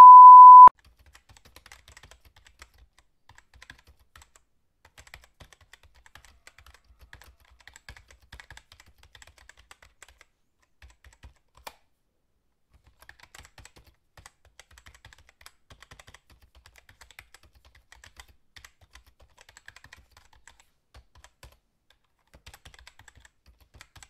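A short, loud, steady test-card beep, then faint computer-keyboard typing clicks, irregular and scattered, with a brief pause about halfway through.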